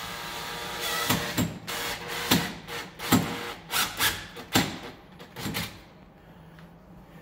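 Makita 18V cordless drill/driver running steadily as it drives a mounting screw into the drawer microwave's cabinet, then in a string of short bursts as the screw is snugged down. The bursts stop about six seconds in.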